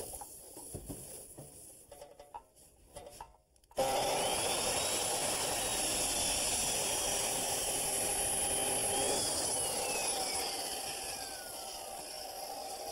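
Handling clicks, then a circular chop saw starts about four seconds in and cuts through PVC pipe with a steady rushing noise. Near the end the motor is released and winds down with a slowly falling whine.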